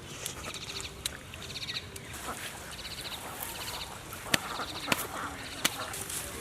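Short, rapidly pulsed high-pitched calls of a small animal, repeating about once a second. Several sharp clicks come through them, the loudest a little over four and about five seconds in.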